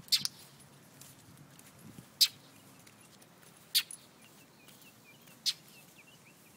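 A bird's sharp, short alarm calls, repeated four times about a second and a half apart, with faint chirping between them.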